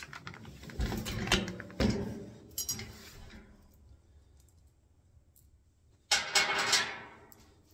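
Steel wheelbarrow tray and loose bolts being handled: a few clanks and knocks in the first two seconds, then a jingling metal rattle about six seconds in as a hand reaches into the tray for bolts.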